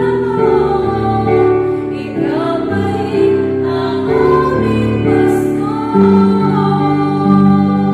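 Slow worship song: a singer's melody over held instrumental chords that change about every second.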